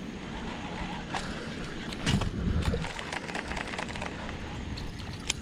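Steady river-water noise around a kayak drifting on a moving river, with a louder burst of noise about two seconds in and a few light clicks.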